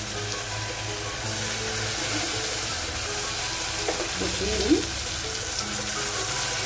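Sliced onions and ground spices frying in oil in an aluminium pot, a steady sizzle while a metal spatula stirs them. The sizzle gets louder about a second in, and there is one sharp knock a little past halfway.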